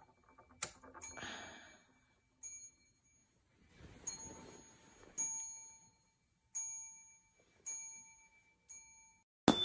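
Short, high metallic dings, about eight of them at uneven gaps of roughly a second, each ringing out briefly. A faint rustle comes between some of them, and just before the end a louder hiss with a steady tone cuts in.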